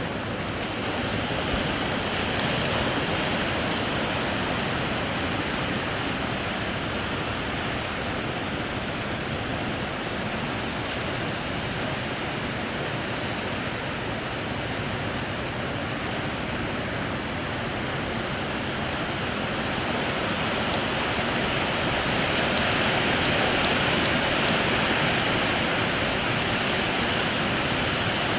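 Steady rushing noise of surf breaking at a river mouth, swelling somewhat about twenty-two seconds in.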